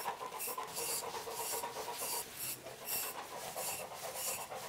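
Bullmastiff panting, about two to three breaths a second, mixed with the scratchy strokes of a de-shedding brush raking through its shedding coat.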